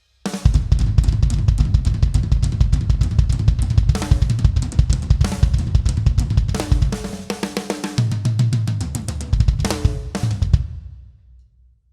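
Ludwig Centennial maple drum kit played in a steady beat with bass drum, snare and cymbals, and tom fills about four, seven and ten seconds in. The playing stops about ten and a half seconds in and rings out.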